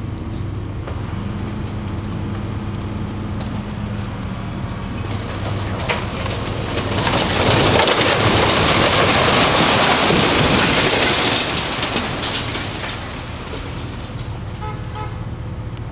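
A multi-storey concrete tower collapsing during demolition: from about six seconds in, a building crash and rumble of falling concrete and debris, loudest for about four seconds, then dying away.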